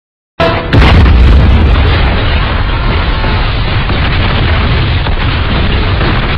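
A large explosion: a sudden blast about half a second in, with crackling at first, then a long, steady low rumble from the fireball that stays loud.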